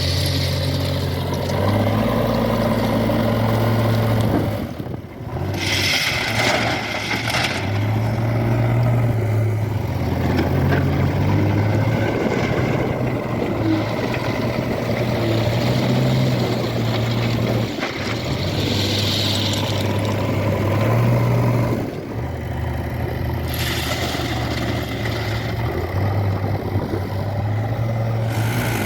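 Diesel engines of a backhoe loader and farm tractors running under work, the engine note stepping up and down. There are two stretches of rasping noise: about five to seven seconds in, and again near the end.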